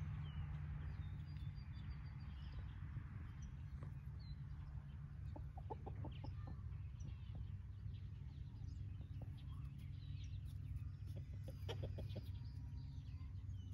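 Chickens clucking faintly in short runs, about halfway through and again near the end, over a steady low hum.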